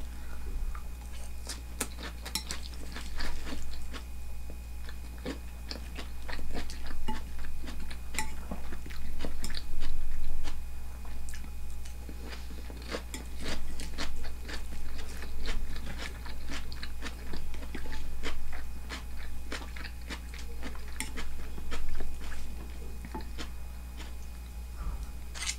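A person chewing and crunching food in irregular bursts of small crisp clicks, from a meal of raw horse meat with sliced onion and a bowl topped with crisp kakiage tempura. A steady low hum runs underneath.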